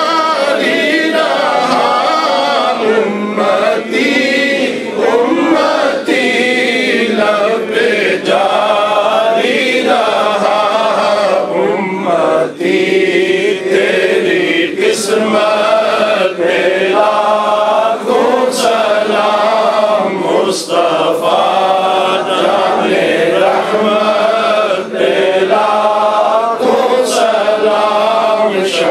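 A group of men chanting an Urdu devotional hymn together, unaccompanied, in continuous sung phrases.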